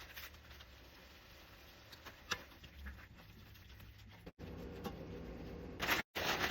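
Cooking sounds from a run of short edited clips: a low background with scattered small clicks and knocks of kitchen utensils, then a louder even hiss after a cut near the end.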